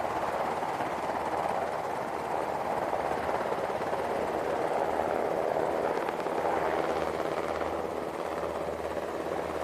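Several UH-60 Black Hawk helicopters, twin-turbine, running at full power as they lift off and climb away: steady rotor and turbine noise.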